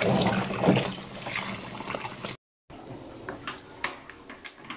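Tap water running while freshwater mussels are rinsed. The sound cuts off abruptly about two and a half seconds in, and what follows is quieter, with a few sharp clicks and knocks.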